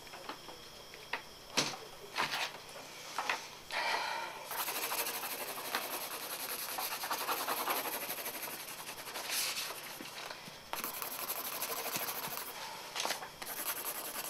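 Pen scratching rapidly across sketchbook paper in quick dense strokes, starting about four seconds in, after a few light clicks and paper handling.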